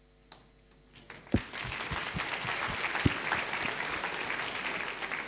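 Audience applauding, starting about a second and a half in, with a few low thumps near its start.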